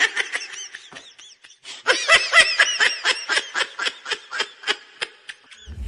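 High-pitched giggling laughter in quick, even pulses, breaking off briefly about a second and a half in and then running on in a longer stretch.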